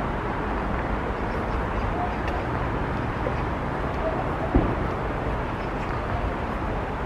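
Steady low outdoor rumble of distant city traffic, with a single knock about four and a half seconds in.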